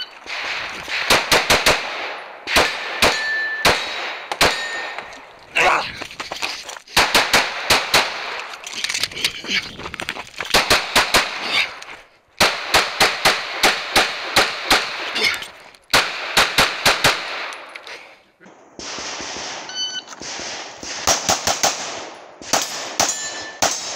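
Glock 19 9mm pistol fired rapidly in quick pairs and strings of shots, with short breaks between strings.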